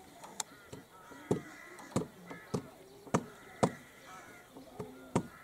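A series of about eight sharp knocks at uneven intervals, with short pitched calls in the gaps between them.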